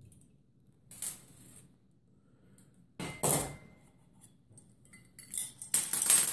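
Metal clinks and knocks as the unbolted motor of a Patton U2-1487 fan is pulled apart by hand, its end cap coming off the stator. Three bursts: a light one about a second in, a louder one about three seconds in, and a cluster of clinks near the end.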